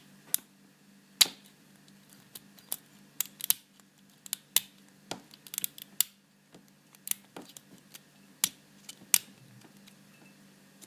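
Metal lock pick clicking and ticking against the pins and tension wrench inside a Paclock PL410PRO 7-pin padlock while it is being picked: irregular sharp clicks, one to three a second, the loudest about a second in.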